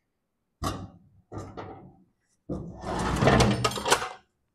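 Steel mower deck from a 1989 Craftsman lawn tractor being tipped up onto its side on a steel diamond-plate workbench. Two short knocks come first, then a longer, louder scraping clatter about two and a half seconds in.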